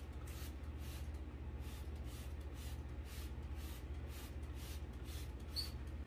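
Cloth rubbing in quick back-and-forth wiping strokes, about two a second, over a steady low hum. A small click near the end.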